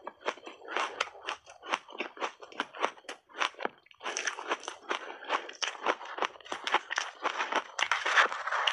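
Close-miked chewing of a mouthful of shaved ice: a fast run of crisp crunches, several a second, growing denser and louder about halfway through.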